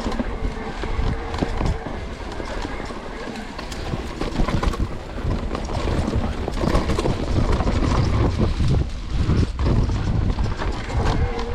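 Wind buffeting the microphone, with rapid irregular clattering and knocking and a low rumble.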